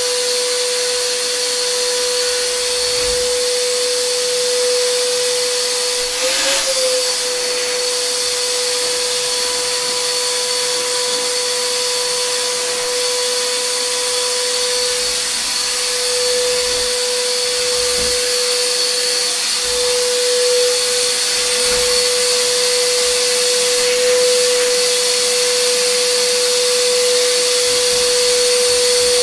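Steady electric motor running and moving air: a constant whine with a hiss of airflow, unchanging throughout, with a brief wobble in pitch a few seconds in.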